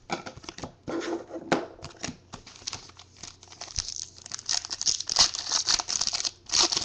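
Foil trading-card pack wrapper being torn open and crinkled, with quick crackling clicks that grow denser and louder in the second half.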